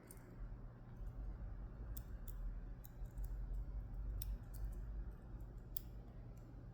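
Small metal parts of a disassembled DOM Diamant euro cylinder lock clicking sharply every so often as they are handled and turned, over a low steady hum.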